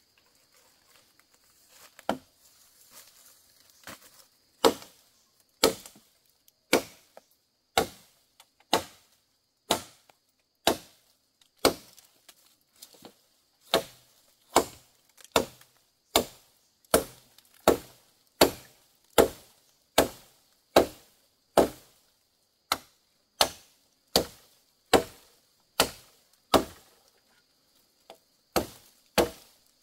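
Wood being chopped with a blade: a few scattered blows at first, then a steady stroke about once a second.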